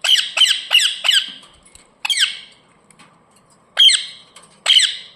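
Ringneck parrot giving short, sharp squawks: four in quick succession in the first second, then single calls at about two, four and five seconds in.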